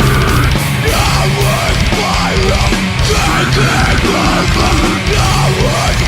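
Loud deathgrind metal music: heavily distorted guitars and drums played at a steady full level.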